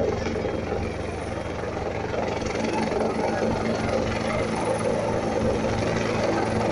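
Helicopter landing close by: steady rotor chop and engine drone under a heavy rush of air from the rotor downwash.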